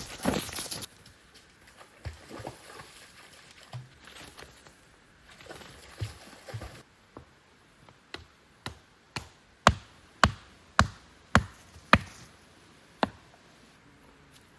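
Wood being chopped: a run of about ten sharp strikes, roughly two a second, in the second half. A brief rustle of footsteps in leaves comes at the start.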